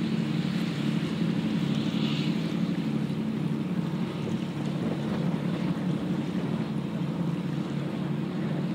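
A boat engine runs with a steady low drone, while wind buffets the microphone.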